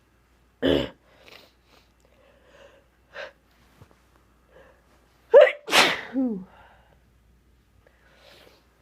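A person sneezing: one short, sharp sneeze just over half a second in, then a louder, longer sneeze about five and a half seconds in that ends in a falling vocal cry.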